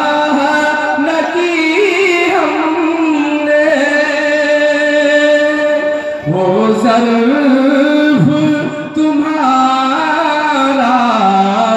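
A man singing a naat, an Urdu devotional song in praise of the Prophet, solo into a microphone. He sings long held, ornamented notes, pausing briefly for breath about six seconds in and again about eight seconds in.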